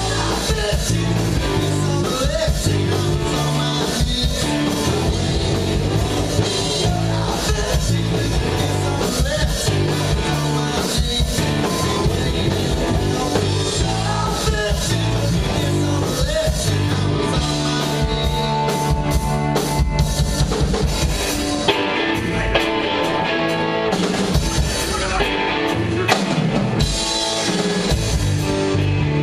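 Live rock band playing with drum kit and guitar, drums keeping a steady beat.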